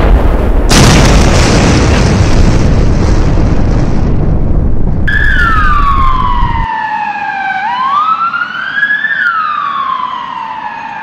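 Explosion sound effect: a second blast goes off just under a second in, and its rumble cuts out after six or seven seconds. An emergency siren starts wailing about five seconds in, its pitch sliding slowly down and back up over and over.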